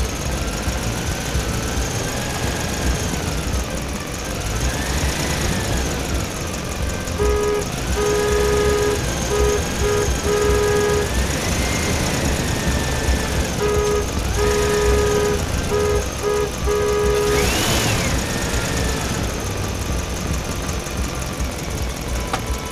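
Electronic toy-vehicle sound effects over a steady low engine-like rumble: siren-like tones rise and fall every few seconds, and from about seven seconds in a repeated beeping horn pattern comes in two stretches.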